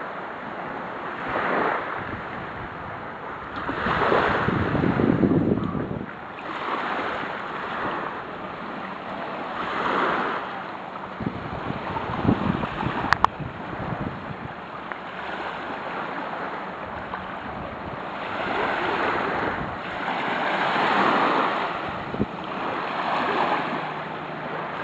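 Small sea waves washing onto a sandy beach, swelling and fading every few seconds, with wind buffeting the microphone. One sharp click about halfway through.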